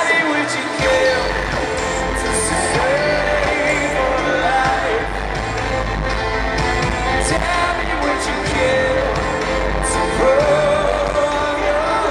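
A rock band playing live with a male lead vocalist singing over sustained synth chords. A deep bass comes in about a second in, and there is a sharp percussion hit every second or two.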